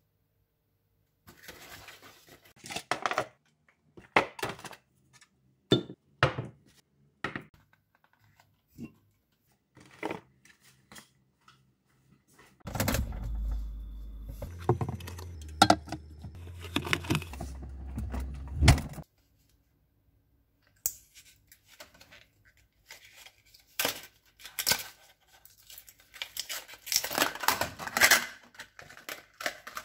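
Unpacking shopping by hand: packaging rustling and tearing, and plastic food containers and a plastic bottle knocking and clattering on a countertop, in many short bursts. A low rumble runs for several seconds in the middle.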